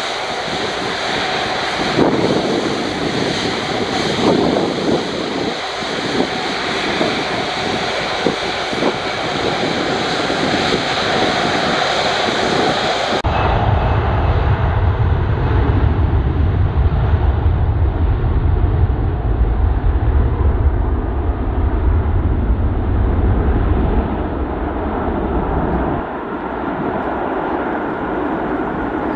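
Airbus A330-300 freighter's jet engines: first a steady whine and rush as it taxis, then, after a sudden cut about halfway through, a deep rumble of the engines at takeoff power on the takeoff roll, easing off near the end as the aircraft draws away.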